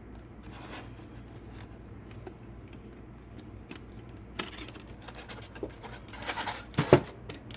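Box packaging being handled while the toy helicopter's controller is taken out: rustling and scraping with scattered light clicks, growing louder in the second half and ending with a sharp knock near the end.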